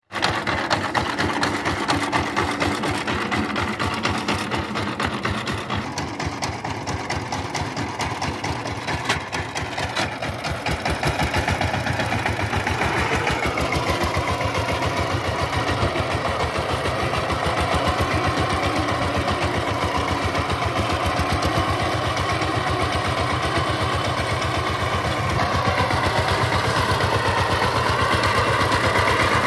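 Single-cylinder diesel engine of a two-wheel power tiller running with a fast, even chugging beat. About twelve seconds in it speeds up and gets a little louder, then holds that faster pace steadily.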